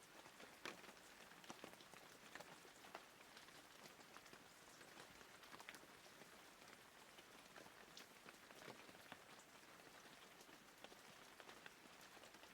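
Near silence: a faint hiss with scattered soft ticks and crackles.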